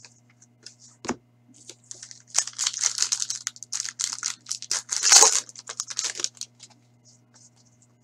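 A foil hockey card pack (2015-16 Upper Deck Series 2) being torn open by hand: crinkling and tearing of the wrapper for about four seconds, loudest about five seconds in, after a single sharp tap about a second in.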